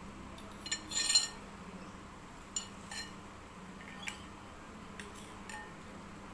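Eating utensil clinking against a bowl of instant noodles in a few short, sharp clinks, the loudest cluster about a second in and lighter ones spread through the rest.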